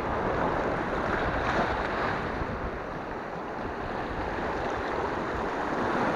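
Sea waves washing and breaking over shoreline rocks, a steady rush of surf that swells and eases.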